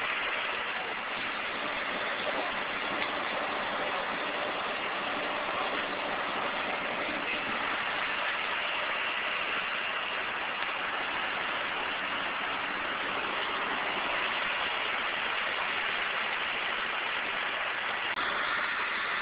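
Steady, unbroken drone of an idling vehicle engine with a hiss over it, level throughout.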